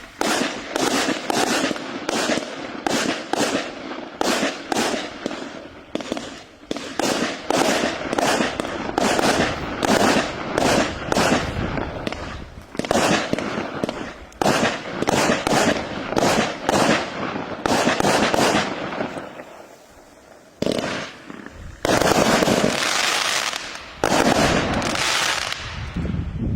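BL8120K Paris consumer firework cake, 20 mm calibre and 120 shots, firing a rapid string of shots at about two a second. There is a short lull about twenty seconds in, then denser, longer volleys.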